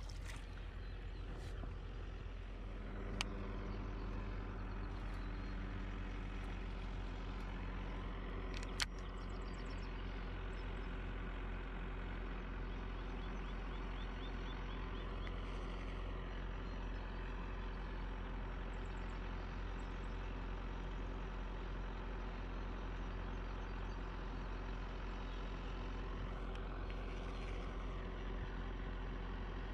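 Steady low drone of a motor vehicle's engine running at idle, even in pitch throughout. Two sharp clicks stand out, about three and nine seconds in.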